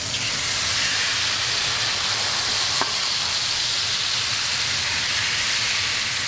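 White wine sizzling steadily as it is poured into a hot stainless steel sauté pan of browned chicken and sausages, deglazing the pan and steaming off as it evaporates.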